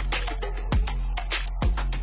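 Background music: an electronic beat with deep bass kicks and quick, crisp hi-hat strikes.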